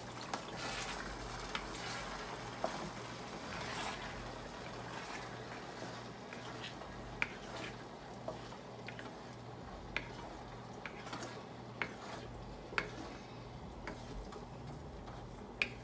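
Wooden spatula stirring a thick tomato meat sauce in a nonstick pan, with sharp taps of the spatula against the pan every second or two over a steady hiss from the simmering sauce.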